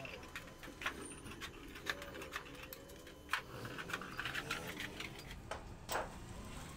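Long-handled hand shears cutting a thin, mirror-polished metal sheet: irregular sharp snips and clicks as the blades bite, roughly one a second.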